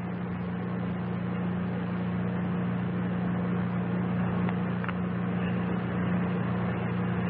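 Steady hiss with a constant low electrical hum from an old launch-commentary audio feed, with a faint click about five seconds in.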